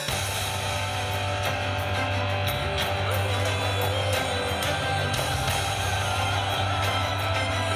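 Music: a band-backed song with strummed guitar, bass and a steady drum beat.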